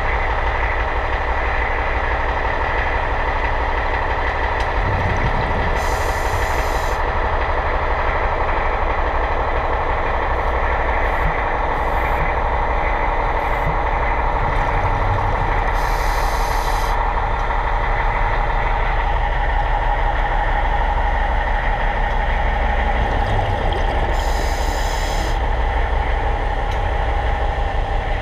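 Steady machine hum heard underwater, holding several steady tones with a low rumble beneath. Three brief hisses come about ten seconds apart.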